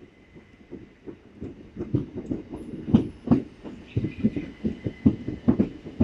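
Southern Class 377 Electrostar electric multiple unit running into the platform, its wheels and pickup gear clattering in a quick run of knocks that grows louder and denser as the carriages pass close. A faint high whine comes in near the end. The spotter puts the clatter down to worn third-rail shoes.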